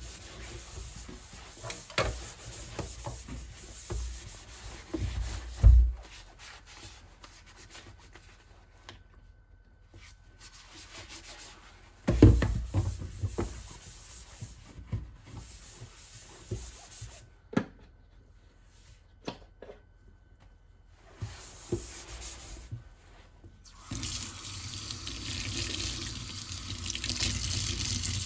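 Kitchen work at a sink: scattered knocks and clatter of things being handled, then a tap running steadily from about four seconds before the end.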